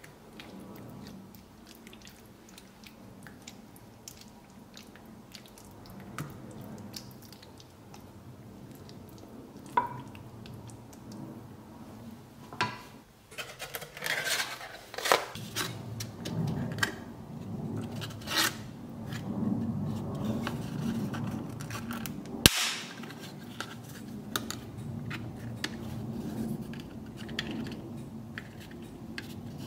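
A ladle scraping and tapping against a glass baking dish as creamy sauce is spread, with scattered light clicks and handling sounds. About three-quarters of the way in comes one sharp, loud click.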